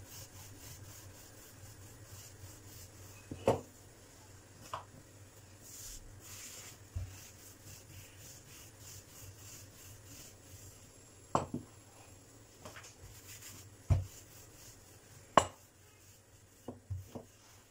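Wooden rolling pin rolling out soft dough on a countertop: a quiet steady rubbing, broken by several sharp wooden knocks.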